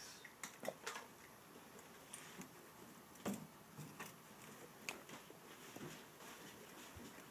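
Faint, scattered rustles and light ticks from pet dwarf rats scrabbling at and handling a paper towel, coming irregularly a few times over several seconds.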